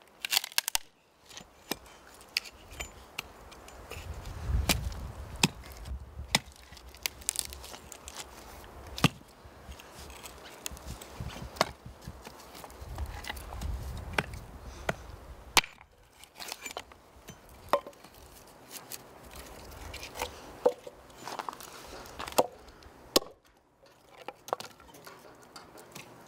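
A hatchet splitting firewood on a chopping block: sharp chopping strikes into the wood at irregular intervals, about one a second or slower.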